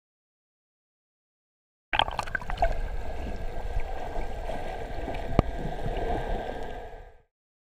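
Water rushing and gurgling along the side of a slowly moving boat as a sailfish is held in the water to revive it, with one sharp click partway through. The sound starts about two seconds in after a silent cut and stops shortly before the end.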